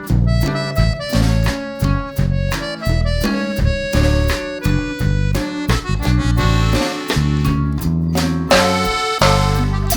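Background music with a steady beat, a bass line and an instrumental melody, with no singing.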